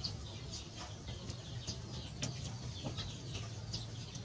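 Small birds chirping, short high falling chirps repeating about two times a second, faint in the background.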